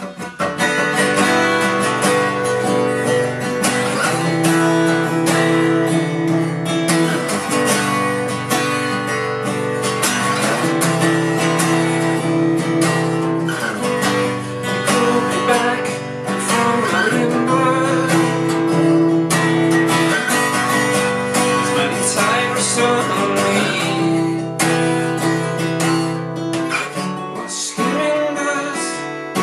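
Steel-string acoustic guitar strummed steadily in the instrumental intro of a song.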